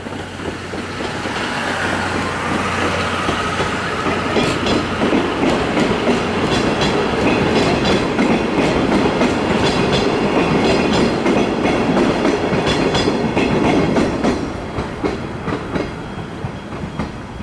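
Steam train hauled by a C58 locomotive rolling past, its wheels clicking over the rail joints. The rumble builds over the first few seconds, holds, then fades after about fourteen seconds.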